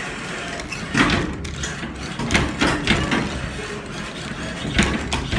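Arcade claw machine's mechanism at work: several sharp clacks and knocks, the loudest about a second in, a cluster a little past the middle and another near the end, over the machine's steady background noise.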